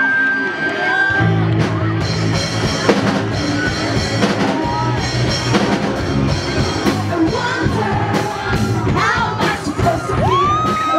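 Live rock band playing with a drum kit and a singer. A held high note ends about a second in, as the full band comes in, and singing runs over the drums.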